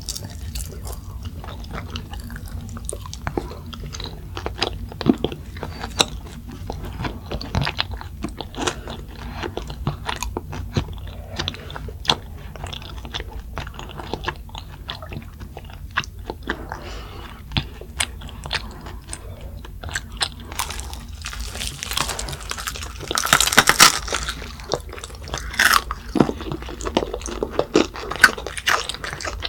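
Children biting and chewing crispy fried chicken drumsticks: a steady run of crunches from the fried batter, with a louder spell of crunching about three-quarters of the way through.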